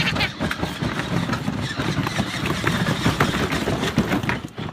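Children's ride-on toy car driving, its motor running and wheels rolling over rough ground with steady rumble and many small rattles and knocks.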